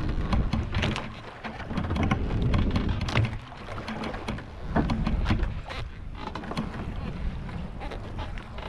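Wind buffeting the microphone and water splashing against a small fishing boat on a choppy sea, with a low steady hum underneath and many short sharp splashes or knocks throughout.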